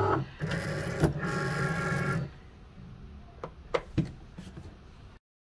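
Cricut cutting machine's motors running for about two seconds as it moves the loaded cutting mat, with a short break after the first burst. A few light clicks follow, and the sound cuts off abruptly near the end.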